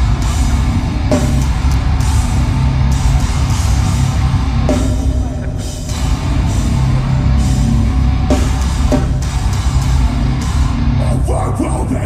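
Live metalcore band playing at full volume: distorted electric guitars, bass and drum kit, heavy in the low end.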